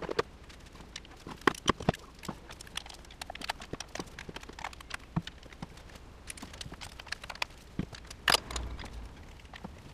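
Hand tools clicking and knocking against the metal of a car engine's camshaft cover and fittings as bolts are undone, in irregular sharp taps with a few louder knocks, the loudest near the end.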